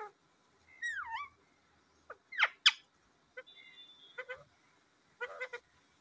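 Rose-ringed parakeet giving a string of short chirps and squawks: a downward-sliding chirp about a second in, two sharp loud calls in the middle, softer calls after, and a quick stuttering chirp near the end.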